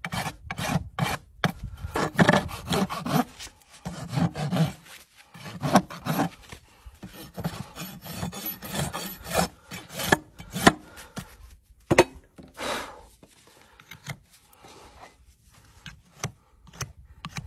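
Farrier's hoof rasp filing a horse's hoof: quick back-and-forth strokes of rough steel on hoof horn, thinning to a few scattered strokes in the last several seconds.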